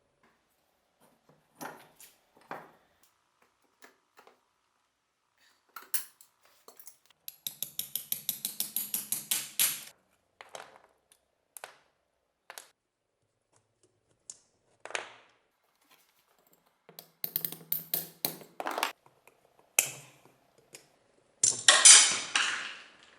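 Metal parts of an old powder-actuated nail gun being handled and worked apart by hand: scattered metallic clinks and clicks, with a rapid run of about eight clicks a second for a couple of seconds a third of the way in, and a louder scraping burst near the end.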